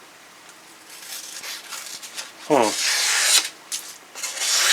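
The Camillus Wedge's 420 stainless steel blade slicing through a sheet of copy paper in two rasping strokes: a longer one about halfway through that starts with a falling tone, then a shorter one near the end. The blade is cutting cleanly.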